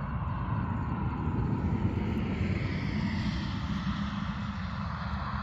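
An aircraft passing at a distance: a steady rushing drone whose tone slowly shifts up and down, over a low rumble.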